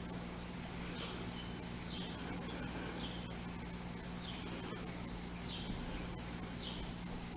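Insects trilling steadily at a high pitch, with short chirps about once a second and a faint low hum underneath.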